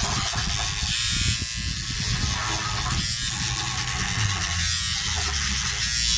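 Toothbrush scrubbing a soapy satellite dish, a rapid, steady scratchy rubbing of bristles on the dish surface that stops abruptly just after the end.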